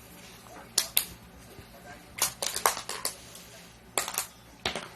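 Magnetic game tiles being tossed onto a board, clicking and clattering as they land and snap into place: a dozen or so sharp clicks in quick little clusters.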